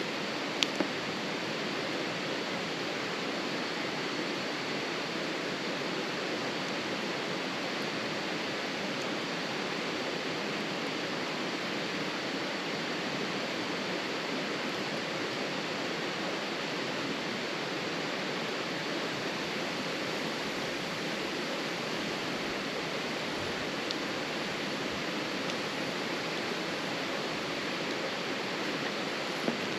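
Steady rushing noise with a few sharp pops from a wood fire burning in a fire pit: two close together about a second in, one later, and one near the end.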